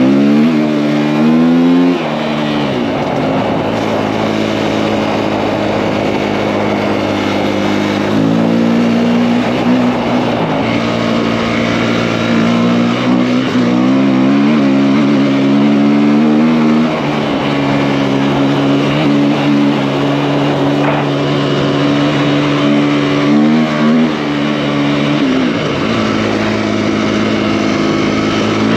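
KTM EXC-F enduro motorcycle's four-stroke single-cylinder engine, big-bored to 280, running under way. The revs rise and fall with the throttle, dropping sharply about two seconds in and again near the end, with steady stretches between.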